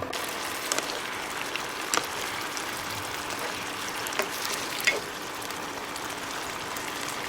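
Cucumber curry cooking in a pan: a steady sizzling hiss with a few small pops.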